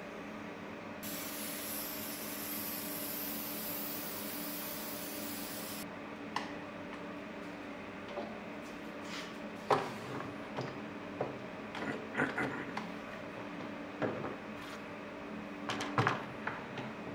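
Aerosol spray hissing steadily for about five seconds, starting and stopping sharply. Then a run of clicks and knocks as quick-release bar clamps are set and ratcheted tight onto a board.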